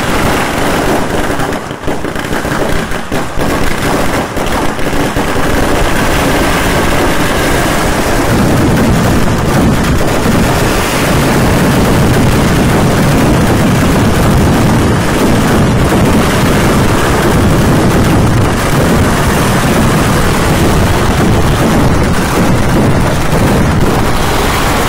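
Firecrackers set off on the ground, going off in a rapid barrage. Separate bangs come at first, then from about eight seconds in they merge into a dense, unbroken crackle that carries on.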